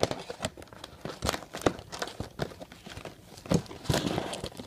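Hands handling a cardboard trading-card display box: irregular taps, clicks and rustles, with a longer rustle near the end.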